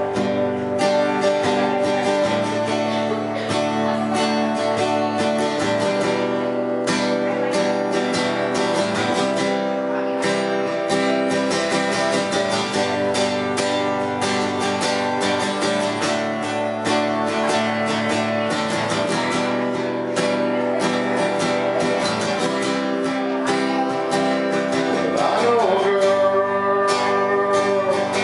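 Acoustic guitar strummed in a steady rhythm, playing full chords as a song accompaniment.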